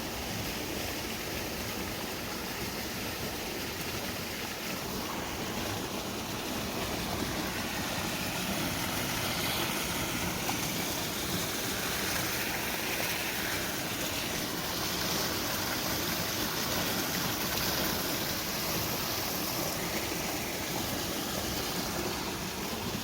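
Water rushing steadily through a granite boulder field, an even, continuous rushing.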